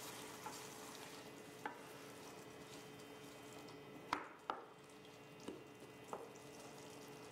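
Wooden spoon stirring chickpeas and tomato sauce in a stainless steel pan over a faint simmering sizzle, with a few light taps of the spoon against the pan.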